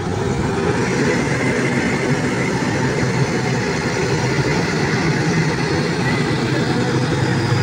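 Case 770 FX backhoe loader's diesel engine working hard under load as the machine climbs a muddy slope with a full bucket of mud; it gets louder at the very start, then holds a steady, heavy drone.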